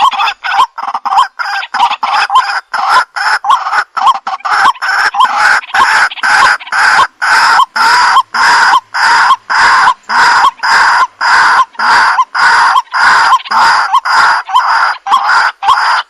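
White-breasted waterhen calling: a long, evenly spaced series of loud repeated notes, about two to three a second.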